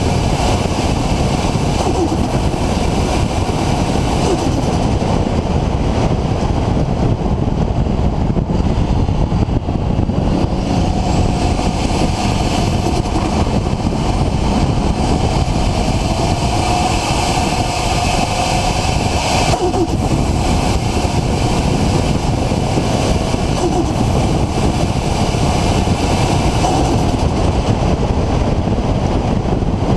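Nissan RB26 straight-six with a large Garrett GTX4088R single turbo running continuously, its pitch drifting slowly up and down with no sharp breaks.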